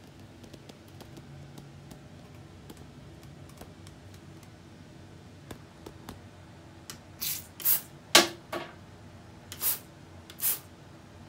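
Faint handling clicks, then about seven seconds in, four short hissing sprays from an aerosol can, with a sharp knock between them.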